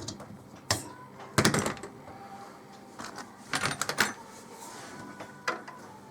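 A handful of separate clicks and knocks from tools and parts being handled during refrigerator repair work. The loudest comes about one and a half seconds in, with a quick cluster a little later.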